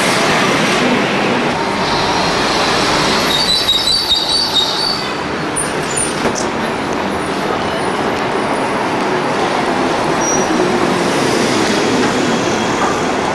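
Electric trolleybus passing close by in street traffic: steady road and running noise, with a brief high-pitched squeal about three to five seconds in and a few sharp ticks around six seconds.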